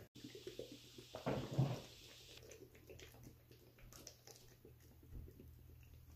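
Faint gulps and swallows as a protein shake is chugged down, the strongest about a second and a half in, over a steady low hum.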